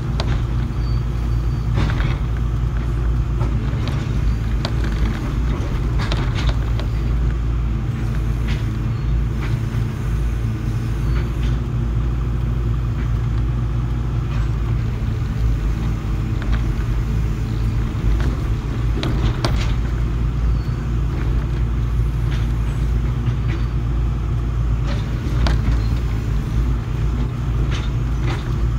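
Excavator's diesel engine running steadily under work, with scattered short clanks and knocks as the boom and bucket move.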